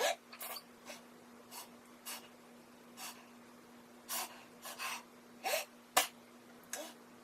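A man's rapid string of about a dozen short, sharp sneezes, irregularly spaced and mostly under half a second each, some ending in a brief falling squeak: a comic imitation of one type of sneezer.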